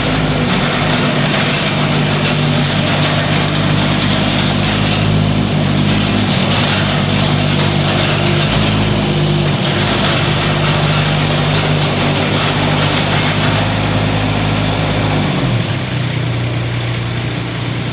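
Kubota K008-3 mini excavator's small diesel engine running at high revs. About three-quarters of the way through it drops to a lower, steady idle.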